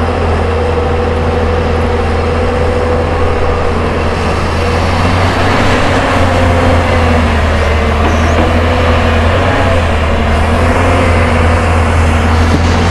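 The diesel engine of a Hyundai long-reach crawler excavator runs in a steady, loud drone while the machine swings round and raises its boom and bucket.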